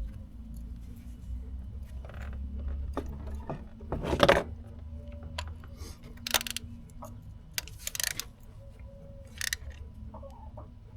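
Metal clinks and rattles of a long socket extension and 16 mm spark plug socket being worked in the spark plug well as a spark plug is threaded back in. The loudest clatter comes about four seconds in, with a few lighter clinks after it.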